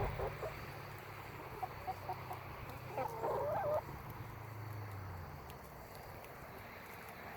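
Chickens clucking in short, scattered calls, with one louder, longer call a little before the middle, over a low steady hum that fades out about two-thirds of the way through.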